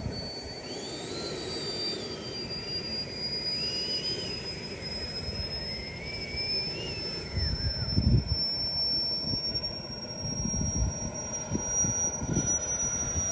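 Turboprop sound module of an RC OV-10D model airplane in flight, giving a steady high turbine whine that slowly rises in pitch, with the electric motors and propellers beneath it. In the first half a lower whine swells up and falls in pitch three times, and a few low rumbles come in about two-thirds of the way in, the loudest about eight seconds in.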